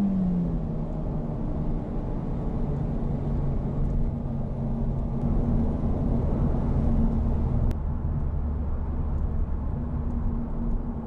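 Honda Civic Type R FL5's turbocharged four-cylinder engine dropping in pitch right at the start as the revs fall, then running steadily at cruise with tyre and road noise.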